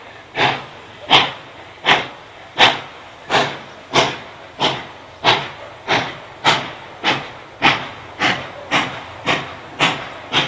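Steam locomotive working hard under heavy smoke, its exhaust beating in sharp chuffs that quicken from under one a second to about two a second as it accelerates.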